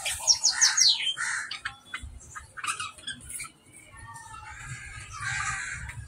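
Male budgerigar warbling: a fast, varied jumble of chirps, quick falling whistles near the start and scratchy chatter.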